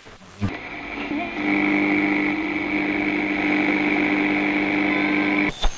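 A steady, muffled mechanical drone with a few held tones. It starts about half a second in and cuts off suddenly near the end.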